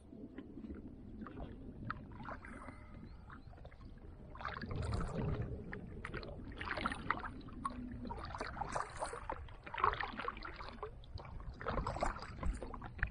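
Water lapping and splashing against the hull of a drifting kayak, in irregular bursts over a low rumble.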